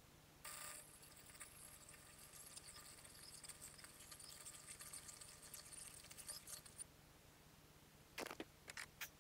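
Faint crackle and sizzle of a gasless flux-core wire welder's arc. It starts about half a second in, runs for about six seconds while a bead is laid on a mower deck hanger bracket, then stops. A few short clicks follow near the end.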